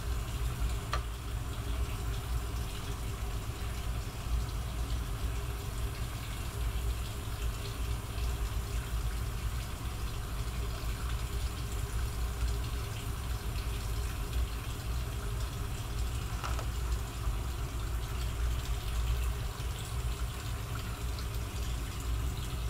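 Steady low rumble and hiss of kitchen background noise, with a few faint clicks.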